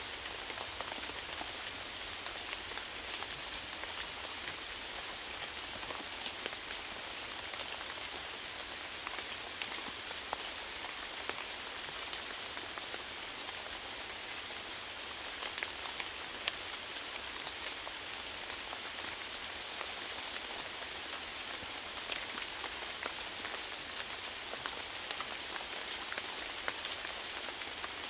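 Steady rain falling, with a dense hiss of drops and many individual drips and taps scattered through it.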